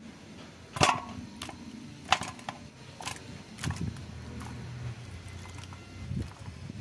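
Raw chicken pieces being handled in a stainless steel bowl: a string of sharp clinks and knocks, the loudest about a second and two seconds in, over a faint low hum.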